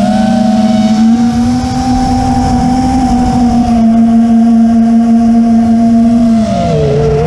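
FPV quadcopter's motors whining at a steady pitch in flight, the pitch dipping lower near the end as the motors slow.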